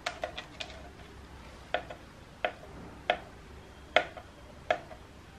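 Kitchen knife chopping boiled egg whites on a plastic cutting board: a few quick taps at first, then single knocks of the blade on the board a little under a second apart.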